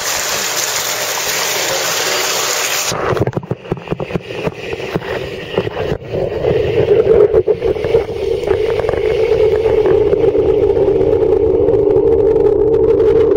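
Steady rushing, splashing water at the surface of a trout pond; about three seconds in the microphone goes under the water and the sound turns muffled, with knocks and bumps and then a steady mechanical hum that grows louder.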